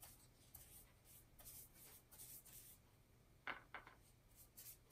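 Faint, repeated swishing of a wide flat brush's bristles stroking across Tyvek paper, with two quick knocks close together about three and a half seconds in.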